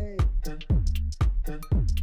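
Upbeat electronic dance music with a steady beat about twice a second and gliding bass notes.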